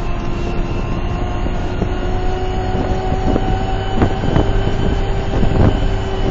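Concrete mixer truck's diesel engine running steadily under way, heard from inside the cab, with a few short knocks or rattles in the second half.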